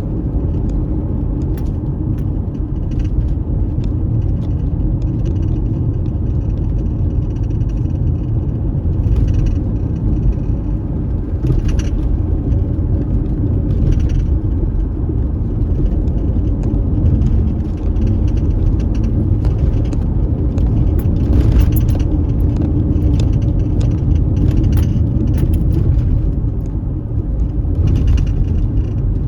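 Car driving on a dusty unpaved road: a steady low rumble of tyres and engine, with frequent rattles and knocks from the rough surface.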